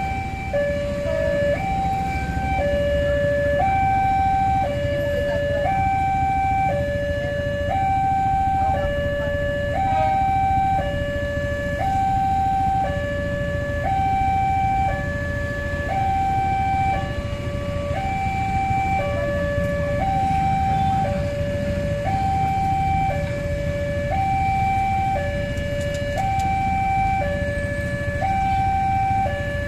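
Two-tone siren switching between a high and a low note about every second, over a steady low rumble.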